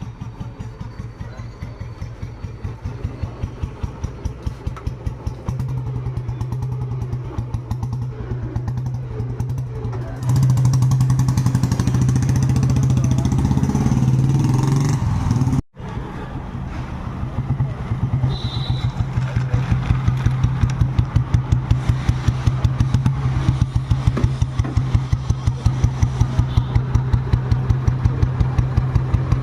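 A 1991 Royal Enfield Bullet's single-cylinder four-stroke engine running with an even, slow beat of firing pulses. It gets louder for a stretch from about ten to fifteen seconds in, breaks off for an instant, then runs on.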